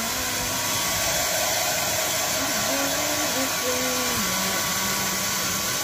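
Handheld hair dryer running steadily: an even rush of air with a thin, steady whine.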